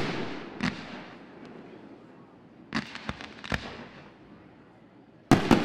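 Fireworks going off: a loud bang at the start, a quick cluster of smaller bangs about three seconds in, and two more loud bangs near the end, each trailing off in echo.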